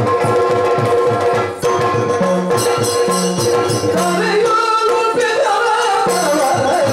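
Yakshagana ensemble music: drum strokes in a steady rhythm with jingling hand cymbals over a steady drone, and the bhagavata's singing voice coming in about four seconds in.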